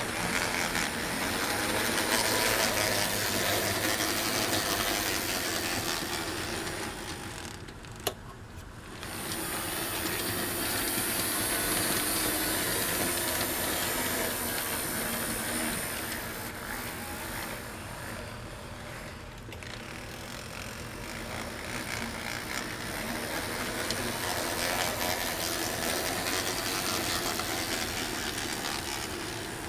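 Tenshodo Union Pacific Big Boy 4-8-8-4 brass model locomotive running on the track: its electric motor and gears whirr with the wheels running on the rails, swelling and fading. There is a sharp click about eight seconds in, the running drops away for about a second, then resumes.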